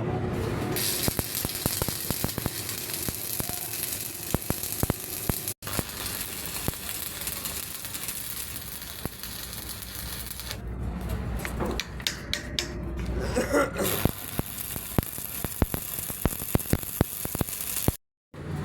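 Stick welding arc crackling and sizzling, a steady hiss full of sharp pops. In the middle the arc drops out for about three seconds, leaving a low hum and scattered clicks, then strikes up again.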